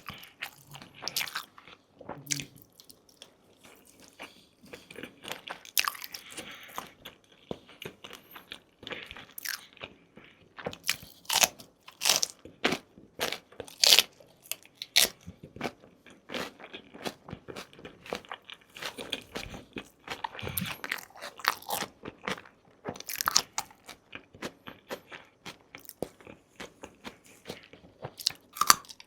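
Close-miked eating sounds: a person biting and chewing crunchy food, a steady run of sharp crunches and wet chewing clicks.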